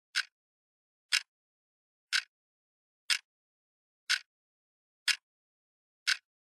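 Sharp ticks, evenly spaced at about one per second with dead silence between them, seven in all.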